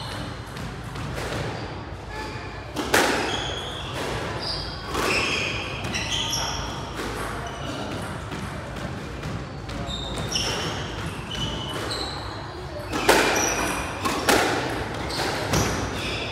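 Squash rally: the ball cracks off rackets and the court walls again and again, with the loudest hits about three seconds in and again near thirteen seconds in. Short high squeaks come from shoes on the wooden court floor, all echoing in the enclosed court.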